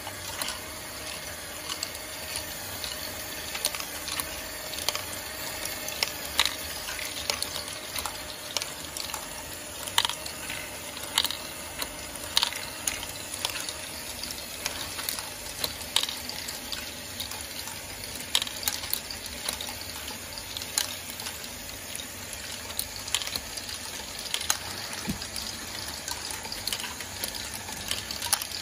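Lego Technic Great Ball Contraption running: small electric motors and plastic gears whir steadily while small plastic balls roll and clatter through the modules, with frequent sharp, irregular clicks as the balls drop and knock together.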